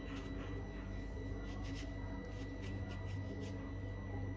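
Knife cutting cantaloupe flesh away from the rind: soft, irregular scraping and rubbing sounds, over a steady low hum.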